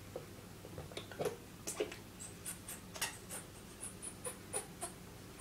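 A toothbrush scrubbing against a plush toy's fur in short strokes: faint scratchy rubs and small high squeaks, a few a second.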